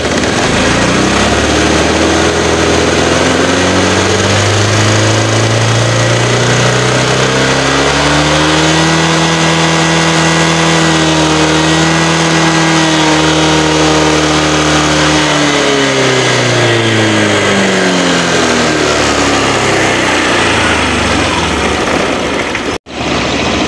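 Motorcycle engine heard at the muffler, revved up gradually, held at raised rpm for several seconds, then let fall back toward idle. The test is for a clogged exhaust catalytic converter, which the mechanic blames for the engine feeling held back under throttle. A brief cut in the sound near the end.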